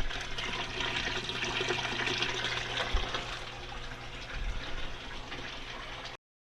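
Water rushing and gurgling through an aquaponic grow bed's bell siphon as it drains the gravel bed, gradually getting quieter, then cutting off suddenly near the end.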